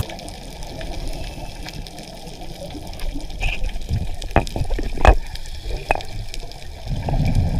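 Underwater noise heard through a diver's camera: a steady low rush of water, with a few sharp clicks and knocks about halfway through.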